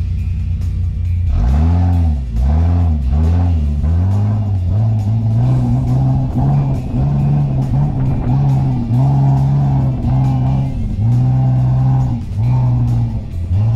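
Off-road 4x4's engine driving through dune sand, revving up and down in quick repeated swells for the first few seconds, then holding higher revs with brief dips about once a second.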